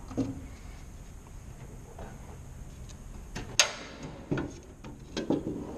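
A plastic miter box knocks once on the shelf of a metal tool cart. Later, the cart's steel drawer is opened with several sharp clanks and rattles as the saws inside are handled.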